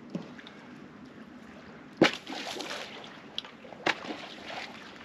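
Shallow seawater splashing and sloshing as a caught fish is released back into the water from a bag: a sharp splash about two seconds in with about a second of slosh after it, and a shorter splash near four seconds.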